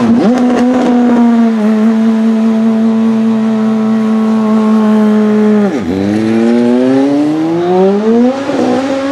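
Audi RS5 DTM race car's 2.0-litre turbocharged four-cylinder engine, blipped with a few sharp crackles, then held at steady high revs. About six seconds in the revs dip suddenly and climb steadily as the car pulls away and accelerates.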